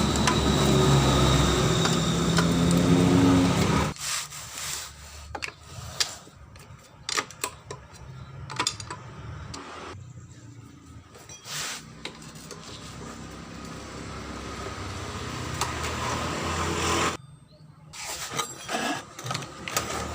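A loud, steady machine noise for about four seconds stops abruptly. Scattered metallic clicks and clinks of tools and bolts follow as a scooter's CVT cover is taken off.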